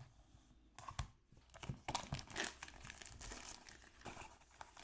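Packaging rustling and crinkling as a DJI Osmo Action 4 box is opened by hand, with a few small knocks and a tearing sound.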